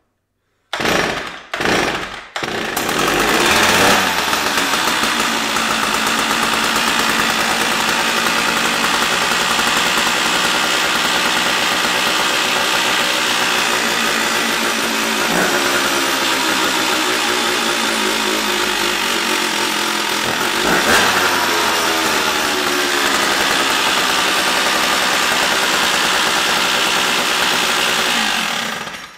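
Stihl 056 AV 81 cc two-stroke chainsaw, no bar or chain fitted, firing a couple of times and catching about two seconds in, then running steadily with short throttle blips about halfway through and again later, until it is shut off just before the end. This is a cold start on a freshly fitted replacement for the failed Bosch electronic ignition, and it sounds pretty good.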